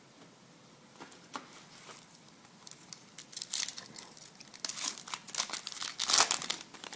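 Foil wrapper of a Topps Chrome trading-card pack crinkling and tearing open by hand. It starts with a few scattered crackles and builds to a dense run of crinkling in the second half, loudest near the end.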